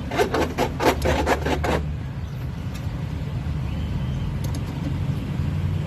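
Starter cranking the Toyota HiAce Commuter's common-rail diesel engine in quick, even pulses, about five a second, for nearly two seconds. The engine then catches and runs with a steady low hum. The van is being tested for hard starting, which the mechanic puts down to air in the common-rail fuel system that needs bleeding.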